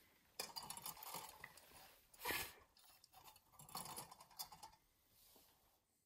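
Faint metallic clicks and rattles from a small tin lantern's glass door being worked, then a short breathy puff about two seconds in as the tealight inside is blown out, then a few more clicks as the door is closed.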